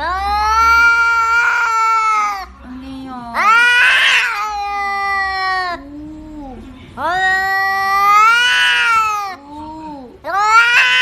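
Domestic cat yowling: four long, drawn-out, wailing yowls of about two seconds each, with shorter, lower calls in between.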